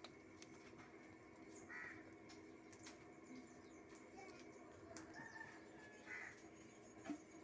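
Near-quiet outdoor background with faint bird calls, including two short calls about two seconds in and again about six seconds in, over a faint steady hum.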